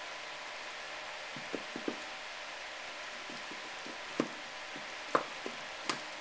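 Inflated rubber tire balls being pushed and squeezed into an ATV tire: scattered short knocks and squeaks of rubber against rubber, the loudest in the second half, over a steady hiss.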